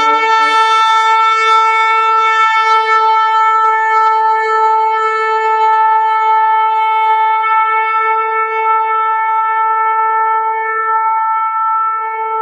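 A shofar blown in one long, steady held blast. It starts with a brief lower note that jumps up to the main pitch.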